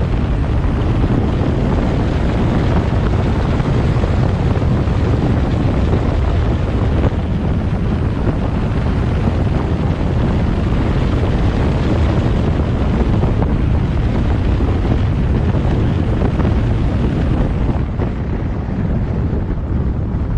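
Steady wind noise buffeting the microphone of a moving car, over low road rumble; it eases a little near the end.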